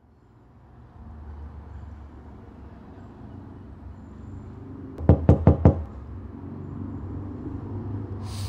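Four quick knocks in a rapid run about five seconds in, over a low steady background rumble.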